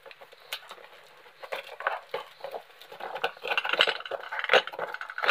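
A cutter knife slitting packing tape and a small cardboard box being opened and handled: scattered sharp clicks and scratchy scraping, busier from about halfway through.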